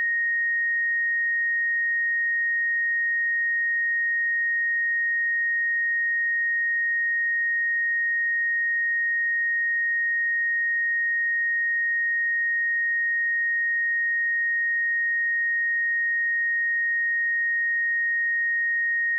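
A pure 1866 Hz sine-wave test tone, a single steady high pitch held at constant level, used to check speakers or headphones.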